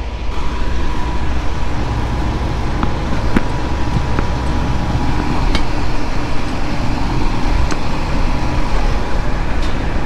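Combine harvester running steadily at close range: a low rumble with a faint steady whine over it, and a few light clicks scattered through.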